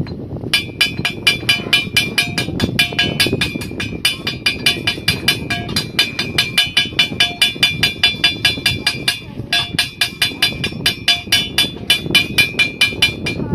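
Rapid, even striking or tapping with a ringing tone, about five strokes a second, with a short pause about nine seconds in.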